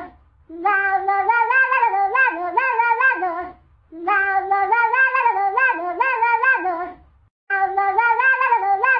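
A cat-meow ringtone: a melody of quick, pitched meows. The same phrase of about three seconds plays three times with short pauses between.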